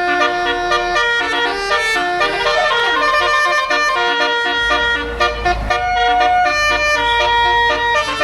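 Bus 'basuri' telolet horn, a multi-tone air horn playing a tune in quick stepped notes. A low rumble joins it about halfway through.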